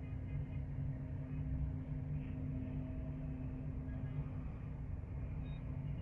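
Distant heavy road traffic, heard from high above as a steady low rumble with a faint underlying hum.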